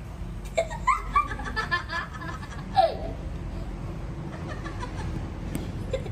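A person laughing heartily, a quick run of ha-ha pulses for about two seconds that ends on a falling note about three seconds in.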